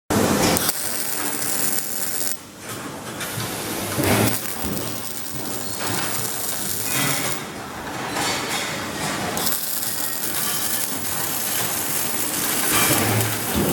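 Metalworking machinery running in a fabrication shop: continuous hissing, crackling mechanical noise with clicks, dipping briefly about two and a half seconds in.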